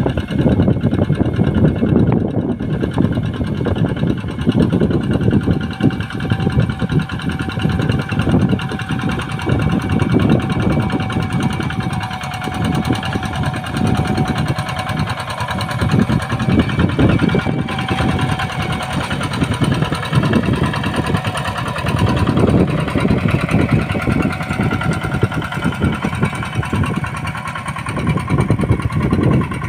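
Kubota farm machine's diesel engine running steadily while working a rice paddy, its low drone pulsing unevenly as the load changes.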